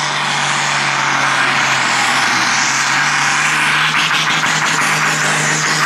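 Diesel pulling tractor running at full throttle as it drags the weight sled down the track: a loud, steady din with a steady low drone underneath.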